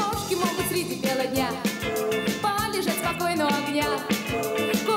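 Upbeat dance music with a steady drum beat and a melody.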